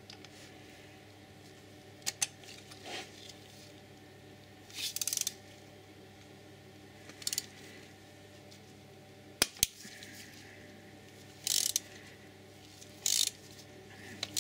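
Ratchet wrench working a spark plug socket on an extension: scattered metallic clicks and short rasps of the ratchet's pawl as the spark plug is worked loose, with a sharp double click near the middle.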